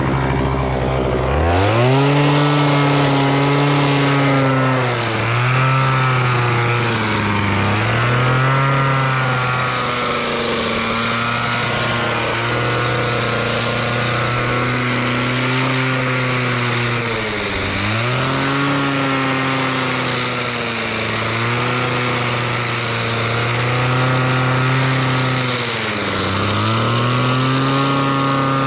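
Pole hedge trimmer running as it cuts through a shrub. It speeds up about a second and a half in, and its pitch then dips briefly and recovers every few seconds as the blades bite into the branches.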